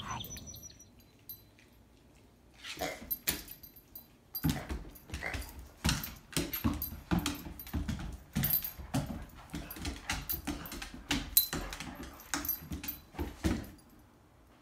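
A dog playing with a toy on a hardwood floor. A busy, irregular run of knocks and clicks from the toy and the dog's paws hitting the boards starts a few seconds in and dies away near the end.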